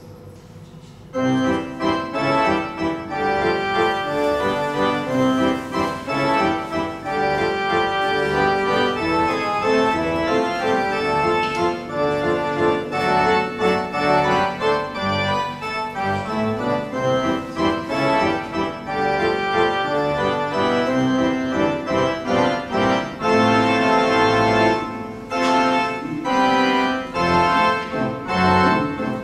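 Background music starts abruptly about a second in and plays on, with sustained keyboard-like chords and melody notes.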